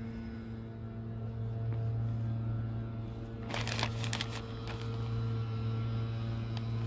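A steady low mechanical hum, with a short rustle of the plastic potting-soil bag being handled about three and a half seconds in.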